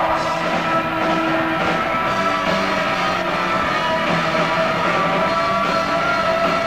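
Live rock band with loud electric guitars; many sustained tones hold steady and overlap.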